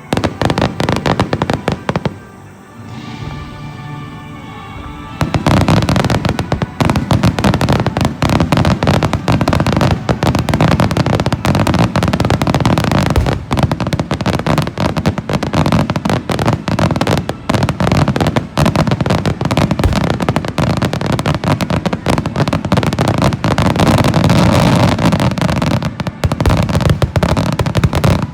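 Starmine fireworks barrage: shells bursting in quick succession with bangs and crackling. After a short lull it builds, about five seconds in, into a dense, unbroken volley.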